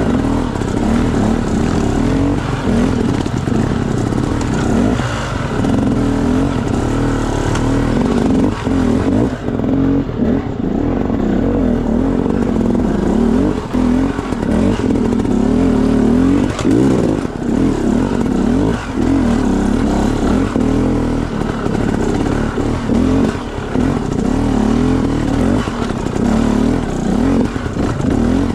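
Trail motorcycle engine running under way, its revs rising and falling, with scattered knocks and rattles.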